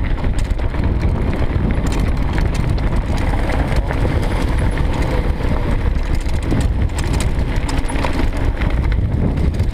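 Mountain bike rolling fast over a gravel forest track: a steady rumble of tyres on dirt and stones, with small rattles and clicks from the bike all the way through.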